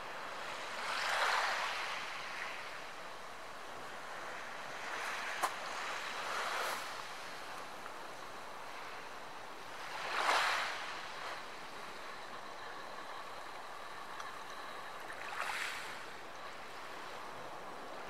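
Small waves washing onto a pebble beach over a steady hiss, coming in soft swells every four to five seconds, the loudest about ten seconds in. A single sharp click about five seconds in.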